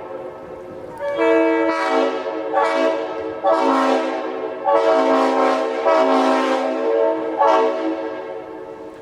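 Nathan Airchime RS5T-RRO five-chime train horn, opened up to full orifice, sounded in a string of about seven blasts of varying length. Each blast is a chord of several steady tones that tails off between blasts.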